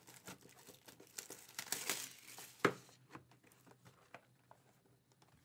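Plastic wrapping crinkling and tearing as a 2022-23 Upper Deck Clear Cut hockey card box is unwrapped and opened, with one sharp click near the middle, then only soft handling ticks.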